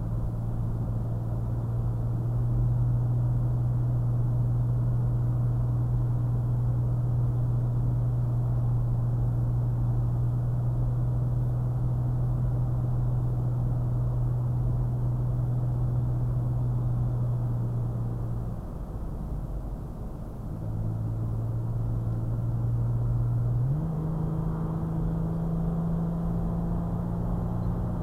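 Toyota FJ Cruiser's 4.0-litre V6 and road noise heard from inside the cabin while cruising, the engine holding a steady drone. About two-thirds of the way in the drone eases off for a moment. Near the end it jumps up in pitch and stays higher, as when the transmission shifts down a gear.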